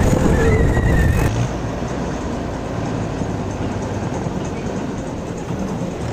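Mahindra 585 DI diesel tractor engine running under load as it hauls a heavily loaded sugarcane trolley along the road, close and loud at first with a wavering whine. After about a second the sound drops to quieter road noise with the engine hum further off, swelling again near the end as the tractor draws nearer.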